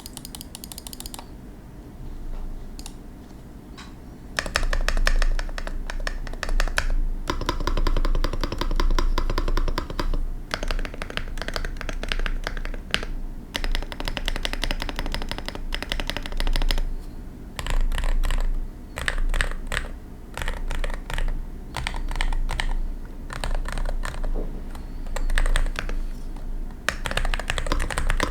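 Typing on a Leobog A80RT Ultra Hall-effect (magnetic-switch) keyboard: a few scattered keystrokes, then from about four seconds in, fast runs of key clicks in bursts with short pauses between them.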